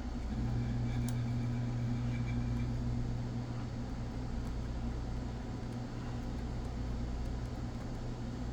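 A steady low hum, with a faint single click about a second in.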